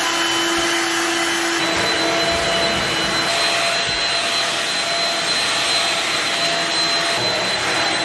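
Corded stick vacuum cleaner running steadily with a loud, even whine. Its tones shift slightly about two seconds in.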